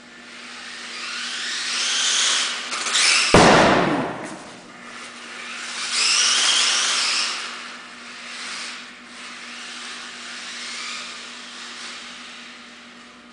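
Xmod RC car's small electric T2 motor and gears whining as the car speeds about on high, rising in pitch as it accelerates and fading as it runs off, twice. The loudest moment is a sudden burst about three seconds in that drops in pitch as it fades.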